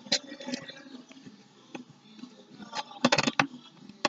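A small spoon stirring a glue-and-paint slime mixture in a container: irregular clicks and scrapes, with a quick run of sharper knocks about three seconds in.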